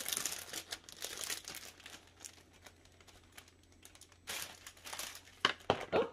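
Packaging crinkling and rustling as it is handled: a run of crinkles at the start, a quieter stretch, then two short bursts of crinkling near the end.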